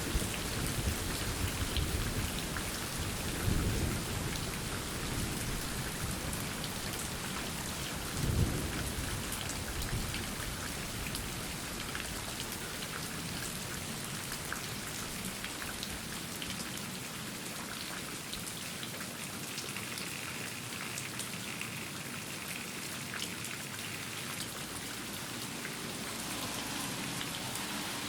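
Steady rain falling, with thunder rumbling through the first part, strongest about three and eight seconds in, then fading out and leaving the rain alone.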